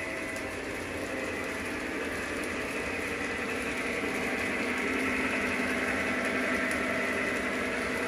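Double-headed Lionel O-gauge locomotives, a K4 Pacific steam engine and an F3 diesel, running along three-rail track with passenger cars: a steady mechanical rumble of wheels and motors that grows gradually louder as the train comes past.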